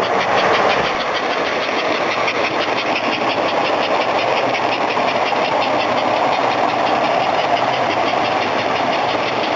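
S gauge model freight train running on the track, pulled by a custom NYC 4-8-2 Mohawk locomotive built from an American Flyer Hudson: a steady whir of motor and wheels with a fast, even clicking as the cars roll past.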